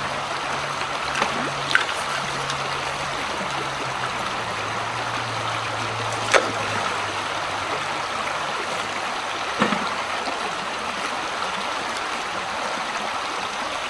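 Shallow creek rushing and rippling steadily over stones, with a few faint sharp clicks now and then.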